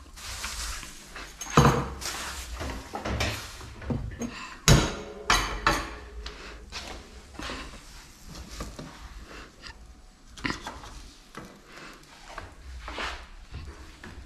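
Kitchen clatter: a frying pan, spatula and plate knocking and scraping as a fried egg is dished up. There are several sharp knocks in the first six seconds, then quieter handling noise.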